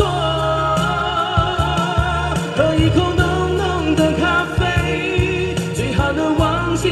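A man singing a slow Mandarin pop ballad live into a microphone over backing music, his voice wavering with vibrato on held notes.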